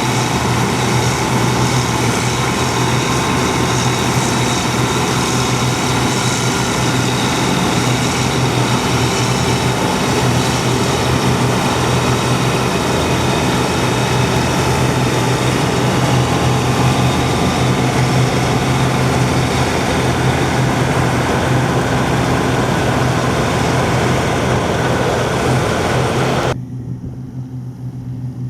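Heavy diesel harvest machinery running steadily: a constant low engine hum under dense mechanical clatter and rushing noise. Near the end the higher noise cuts off abruptly, leaving only the low engine hum.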